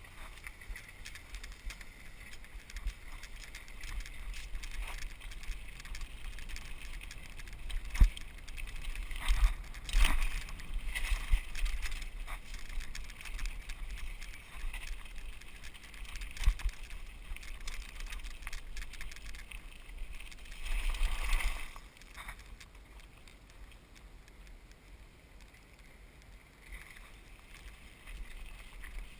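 Mountain bike riding along a gravel dirt road: tyre noise and the bike rattling over the bumps, with a sharp knock about eight seconds in. Wind rumbles on the microphone throughout.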